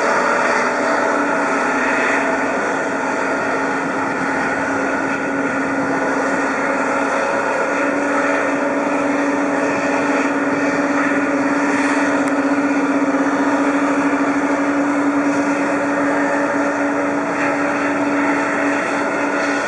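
Boeing 777 jet engines running on the apron: a steady whine of several held tones over a broad rushing noise.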